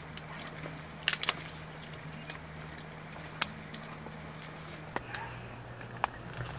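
Beef bone broth poured from a plastic retort pouch into a shallow hot-pot pan, with a few sharp crinkles from the pouch.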